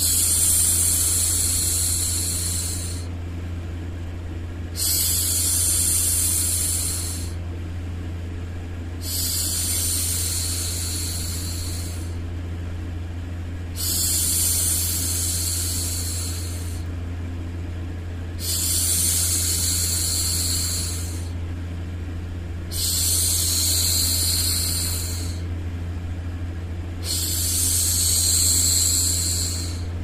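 A woman's voice shushing for a baby, a long "shhh" of about two and a half seconds repeated roughly every four and a half seconds, seven times in all. A steady low drone runs underneath.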